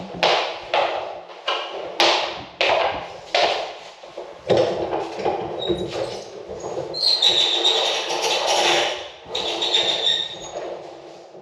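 Bells rung one after another, about two strikes a second, each ringing on and dying away; from about four and a half seconds in, the strikes come closer together and overlap into a continuous clangour.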